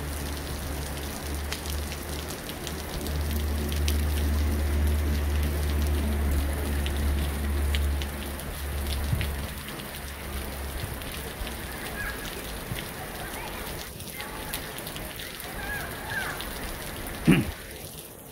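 Steady rain, with single drops ticking sharply, and a low rumble under it for the first several seconds. Faint distant shouts come in during the second half, and a single loud thump comes about a second before the end.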